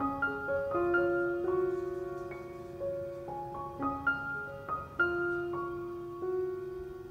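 Background music: a slow, gentle melody of single struck notes that start sharply and ring on, with a few overlapping.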